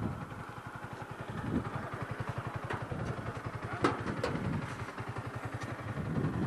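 An engine idling with a steady, even chugging beat of about eleven pulses a second, with two sharp knocks a little past the middle.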